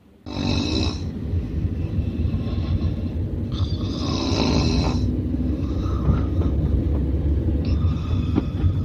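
A sleeping man snoring: three long snores about three and a half seconds apart, over the steady low rumble of a moving car heard from inside the cabin.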